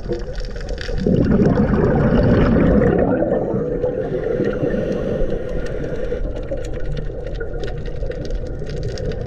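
Underwater sound of a scuba diver breathing through a regulator, with a louder rush of exhaled bubbles starting about a second in and lasting about two seconds. Under it a steady underwater hum and scattered sharp clicks.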